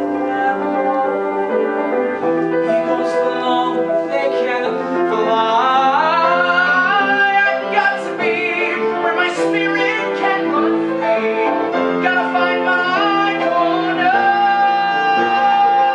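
A man singing a musical-theatre song live with piano accompaniment. His voice climbs in pitch about five seconds in and holds a long, steady note near the end.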